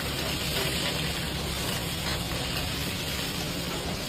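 Steady hissing sizzle of food frying in a karahi, with a low steady hum underneath.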